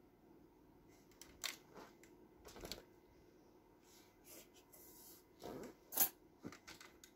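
Faint handling noises of a car stereo head unit turned over in the hands: skin and fingers rubbing and scraping on its metal casing, with a few sharp clicks, the loudest about six seconds in.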